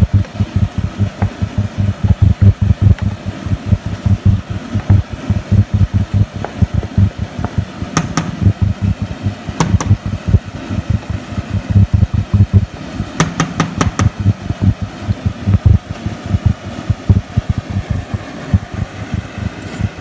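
Thick meat-and-tomato bolognese sauce bubbling as it simmers in a pan, a stream of low pops several times a second, with a few sharp clicks partway through.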